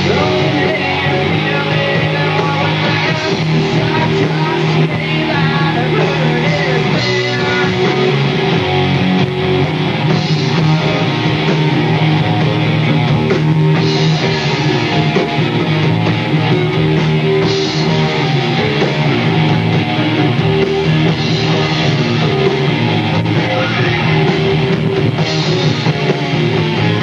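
Rock band playing live: two electric guitars, bass guitar and drums, loud and steady throughout, with some singing.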